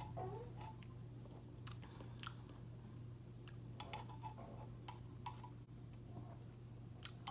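Quiet mouth sounds of someone tasting a drink: a few scattered small clicks and lip smacks over a steady low hum.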